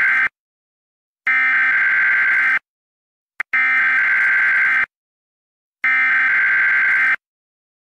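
An electronic alarm buzzer sounding in repeated harsh blasts of about a second and a quarter each, a steady buzz with a short blip before some blasts. The blasts come about every two and a quarter seconds.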